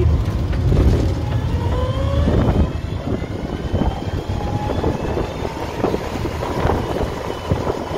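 A VW Beetle-based car's air-cooled flat-four engine pulling as the car picks up speed, with heavy road and wind rumble. The engine note rises about two seconds in, then holds steadier.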